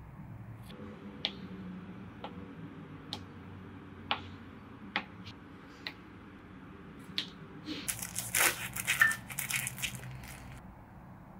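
Kitchen knife tapping down on a plastic cutting board while slicing through a block of soft tofu, a sharp tap about once a second. About eight seconds in, a louder burst of crunching and crinkling follows as the knife cuts through a plastic-wrapped bunch of enoki mushrooms.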